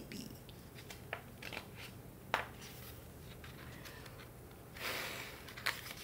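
Faint handling of a hardcover picture book: a few light clicks and taps, then a soft paper rustle near the end as a page is turned.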